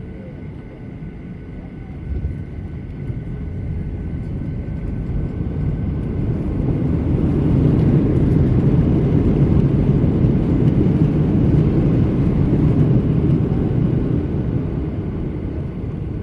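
Airplane landing: a loud rumble that swells to its peak in the middle and eases off toward the end, with a brief thump about two seconds in.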